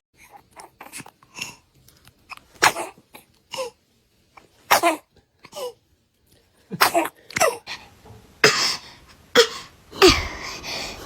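A little kid sneezing and coughing in a string of short, sharp bursts, with the loudest ones coming close together near the end.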